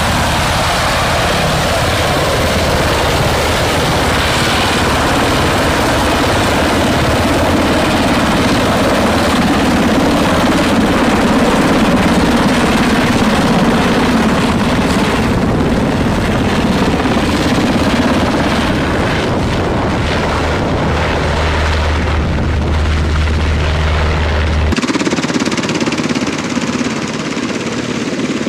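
UH-60 Black Hawk helicopter's twin turboshaft engines and main rotor running loud as it hovers and flies low overhead. About 25 seconds in the sound changes abruptly, the deep low rumble dropping away, as a Black Hawk sits on the ground with its rotors turning.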